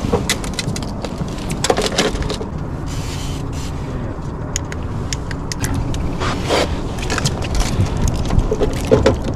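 Boat engine running with a steady low rumble, with scattered knocks and clatter of gear being handled on board.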